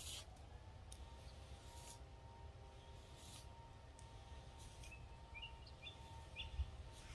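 Faint outdoor background: a low rumble and a faint steady hum, with a few short bird chirps in the second half.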